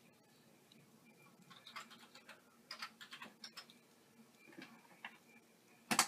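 Light, irregular taps and clicks, then one much louder click near the end.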